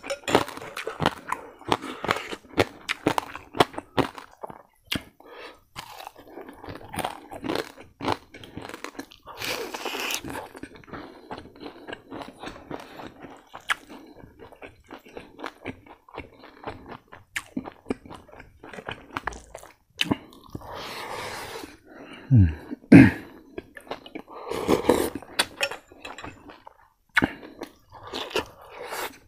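Close-miked chewing and crunching of crispy fried pork belly and rice, with many sharp crackling bites and wet mouth sounds. A few louder bites and mouth sounds come about two thirds of the way in.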